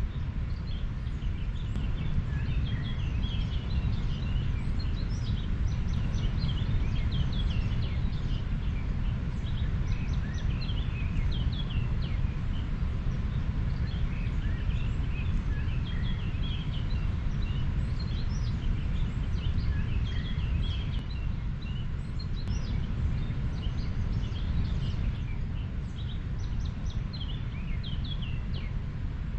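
A river flowing: a steady low rushing of water, with many small birds chirping over it throughout.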